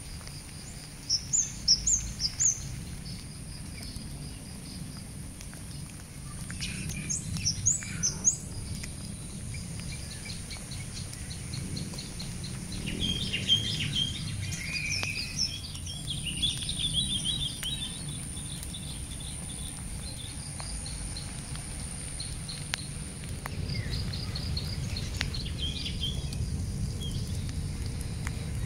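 Birds chirping and calling in short bursts of quick, high notes, the loudest near the start and about a quarter of the way in, with more warbling later. Underneath run a steady low rumble and a faint thin high whine.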